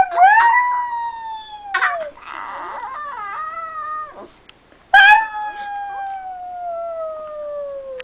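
Small Pomeranian howling in high, drawn-out calls that slide down in pitch. The first lasts about two seconds, then comes a wavering, yodel-like call, and about five seconds in a second long howl sinks slowly for about three seconds.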